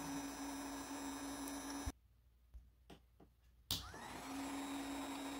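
8018LCD 450 W hot air gun's blower running, a steady hum over the hiss of its airflow. The sound cuts out about two seconds in and comes back with a click nearly two seconds later.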